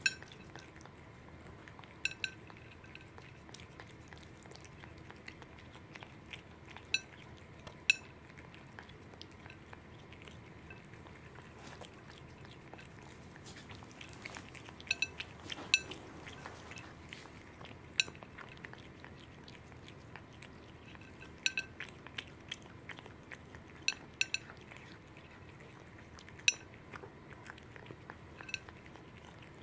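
A cat eating raw salmon off a ceramic plate: quiet chewing, with the metal barrel tag on its collar clinking sharply against the plate at irregular moments, sometimes two or three clinks close together.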